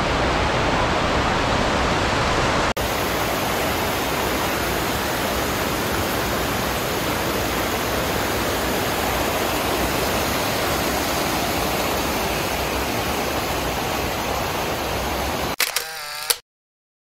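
Baring Falls waterfall rushing close by, a loud, steady roar of falling water. Near the end a brief pitched sound comes in, and then it cuts off suddenly.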